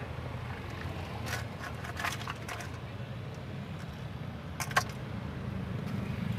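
Steady low rumble of street traffic, with a few short clatters and scrapes: one about a second in, a cluster around two seconds, and a sharper one near five seconds.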